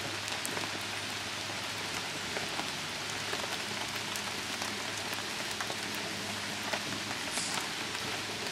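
Steady rain falling on tents and leaves: an even wash of rain with many single drop hits heard through it.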